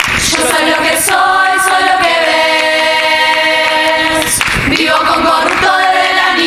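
Murga chorus singing unaccompanied in harmony, with no drums, holding long sustained chords. The voices break off briefly about four and a half seconds in, then come back in.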